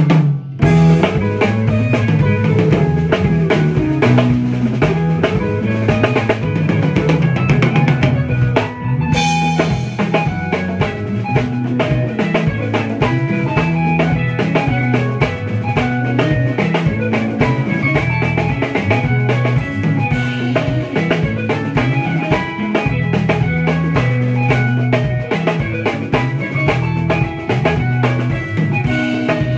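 Live Congolese seben groove from a band of drum kit, congas, bass guitar, keys, and rhythm and lead electric guitars. A busy bass line and drums drive a fast dance beat under bright guitar lines, and the cymbals drop out briefly about nine seconds in.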